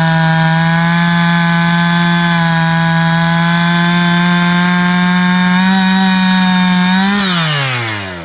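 Chainsaw held at full throttle, sawing through wood, its engine note steady and high. About seven seconds in the throttle is released and the revs fall away.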